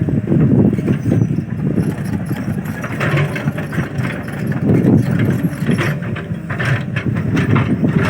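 Excavator's diesel engine running steadily, with scattered knocks and clanks about three seconds in and again near the end.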